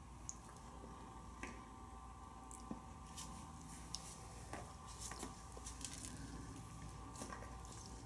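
Faint scattered clicks and crinkles, about a dozen, over a steady hum: a parrot biting at greens and a small dog nosing at crinkly plastic produce bags.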